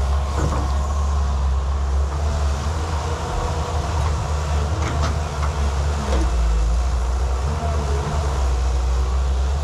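Excavator engine running steadily under load, with a few short metallic clanks and squeaks from the arm and bucket.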